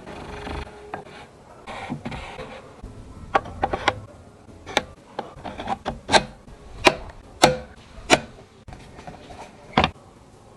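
Hand work on workshop parts: a scraping, rubbing noise for the first two seconds or so, then a string of sharp, irregular clicks and taps as pieces are handled and fitted.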